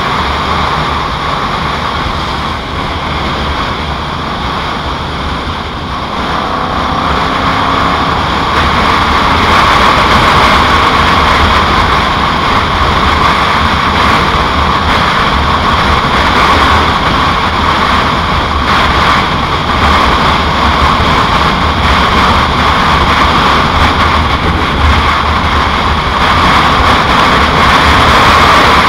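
Yamaha Royal Star Tour Deluxe's V4 engine running under way, mixed with steady rushing wind; it grows louder about eight seconds in and holds there.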